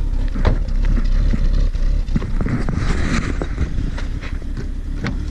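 Car driving, a steady low rumble with scattered light knocks and clatters.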